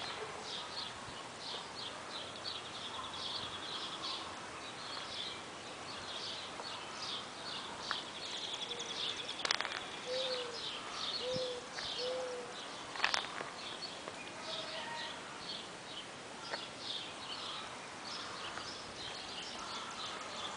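Outdoor birdsong: small birds chirping in quick repeated high notes throughout, with three short low hooting notes about halfway through. Two sharp clicks stand out, one near the middle and one a few seconds later.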